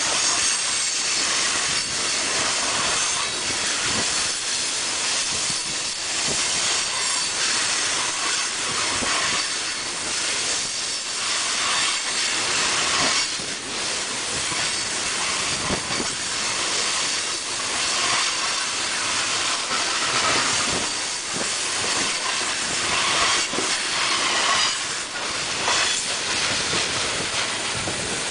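Freight train's coal hopper cars rolling past close by: a steady rush of steel wheels on rail, with occasional knocks from the wheels and a faint high squeal at times.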